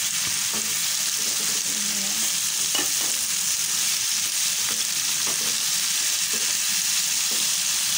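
Tofu and beef kikil sizzling steadily in hot oil in a nonstick frying pan as a wooden spatula stirs them, with a few short scrapes and taps of the spatula against the pan.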